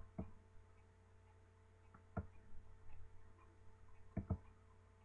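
Computer mouse clicking: a quick double click at the start, a single click about two seconds in, and another double click near the end, over a faint steady hum.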